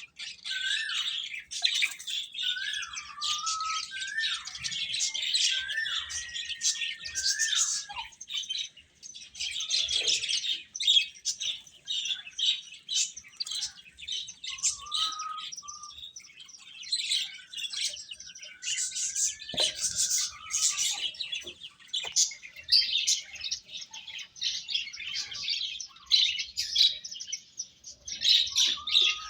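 A brood of domestic chicks peeping rapidly and continuously in a dense, high-pitched chorus, with a few lower, sliding calls mixed in during the first eight seconds and again around the middle.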